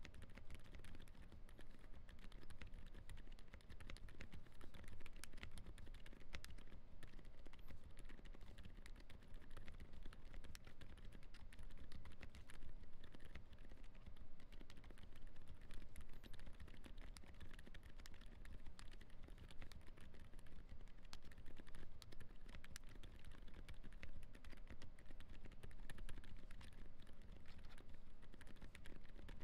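Continuous fast typing on a Zoom75 custom mechanical keyboard with hand-lubed Gazzew U4 silent tactile switches, a flex-cut polycarbonate plate and gasket mount: a steady stream of soft, quiet keystrokes.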